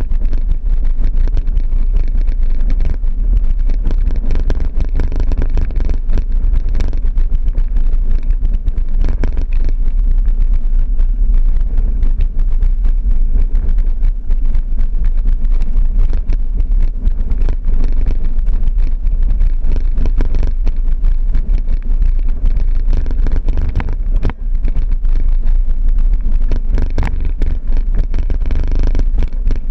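Vehicle driving along a rough dirt track: a steady low rumble of engine, tyres and suspension, with frequent knocks and rattles from the bumps in the track. There is wind noise on the microphone.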